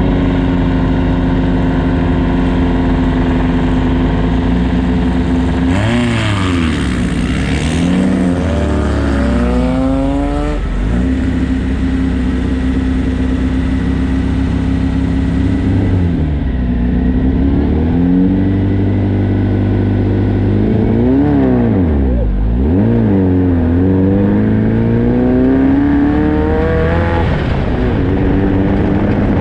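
Race car engine running hard, its revs dropping and climbing back up several times, about six seconds in, around ten and twenty-two seconds, and near the end, holding steady in between.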